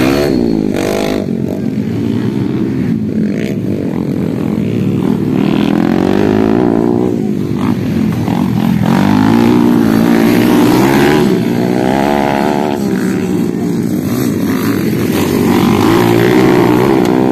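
Underbone racing motorcycles revving hard through a motocross course, several engines overlapping, their pitch rising and falling with each throttle blip and gear change.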